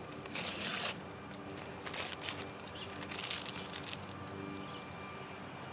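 Paper crinkling and tearing in the hands in several short rustling bursts, the loudest about half a second in, over a faint steady hum.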